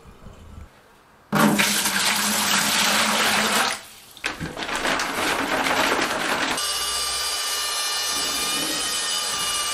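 Water poured from a pot into a plastic bucket in two long pours. About six and a half seconds in, a corded drill with a mixing paddle starts and runs with a steady whine, mixing thinset mortar in the bucket.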